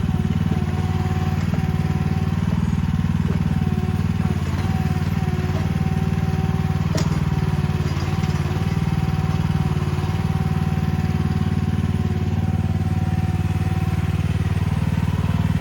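Mini excavator's small engine running steadily, with a thin steady whine above the engine note and a single sharp click about seven seconds in.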